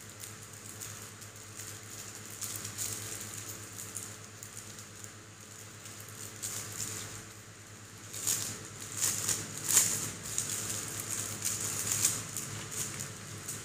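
Clear plastic wrapping crinkling and crackling as it is handled, in sparse bursts at first, then denser and louder in the second half.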